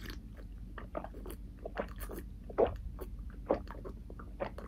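Close-miked swallowing gulps as water is drunk from a plastic cup of ice water, a run of short, irregular mouth clicks and gulps about every half second, the loudest a little over halfway through.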